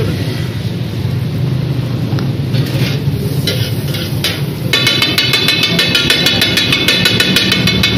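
Metal spatula scraping and then clanking rapidly against a flat metal griddle, about six strikes a second from about halfway in, over a steady low hum.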